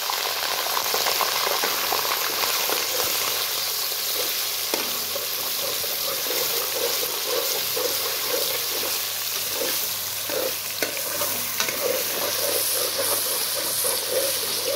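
Boneless chicken pieces sizzling in hot oil in a metal karahi. From about five seconds in, a perforated metal spoon stirs and scrapes through them in repeated strokes.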